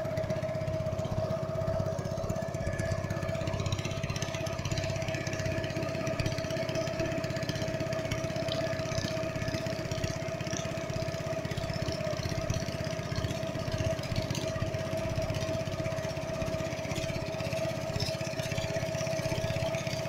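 Small boat's engine running steadily while under way, a constant drone with a steady whine that does not change pitch.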